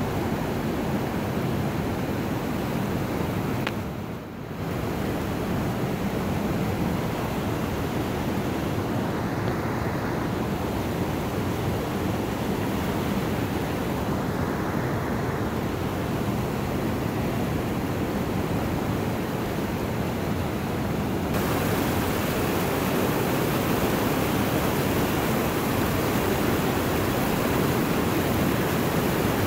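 River rapids rushing in a steady, even roar of water. The sound dips briefly about four seconds in and turns brighter and hissier about two-thirds of the way through.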